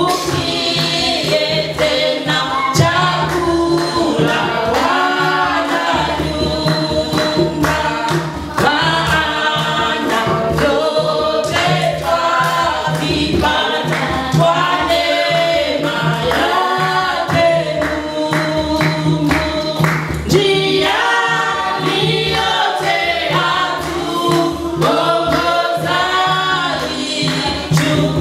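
A choir singing gospel music with instrumental backing and a steady beat.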